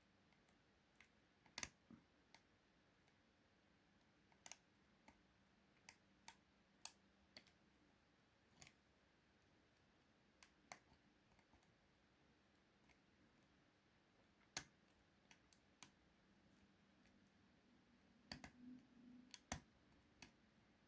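Small irregular metal clicks of a hook pick and tension wrench working the pins of a five-pin euro cylinder lock, with a few clicks close together near the end.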